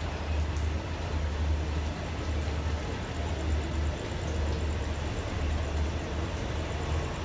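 State Railway of Thailand passenger coaches rolling past along the platform, a steady low rumble of wheels on the rails that swells and dips.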